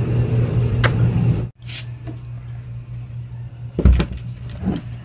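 A steady low hum with a click, cut off about a second and a half in; then a wooden door being handled, with a loud thump about four seconds in and a softer one near the end.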